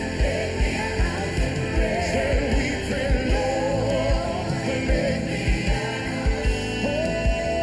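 Live worship band playing, with a steady kick-drum beat and singers' voices wavering over it. A long held note comes in near the end.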